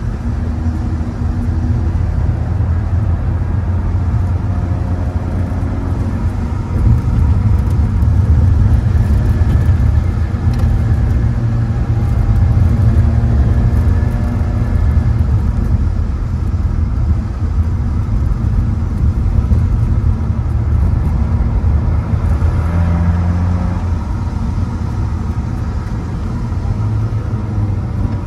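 Car engine and exhaust heard from inside the cabin while lapping a race track, a steady low drone with the engine note shifting as the driver accelerates and lifts, louder from about seven seconds in.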